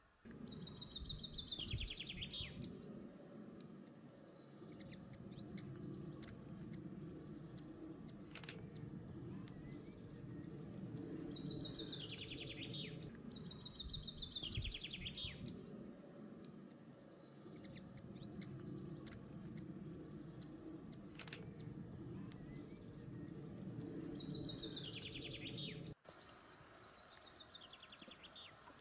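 A small songbird singing short, quick trilled phrases that drop steadily in pitch, four times, over a steady low background hum.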